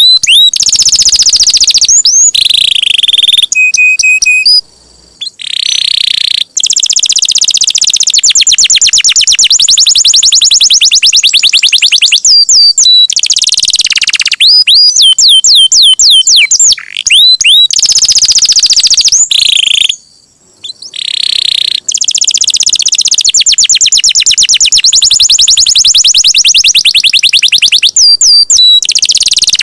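Domestic canary singing loudly in long, fast, high-pitched trills (rolls), with some swooping whistled notes and a couple of short pauses.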